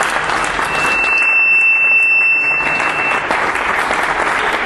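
A small audience seated at tables applauding steadily with dense clapping. A thin steady high whistle sounds through the clapping from about a second in, lasting a couple of seconds.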